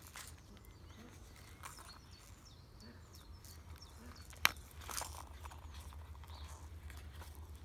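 Black leather trifold wallet being handled and unfolded: soft rustling and creaking of the leather, with one sharp click about four and a half seconds in as the snap-button strap is worked. Faint, over a low steady hum.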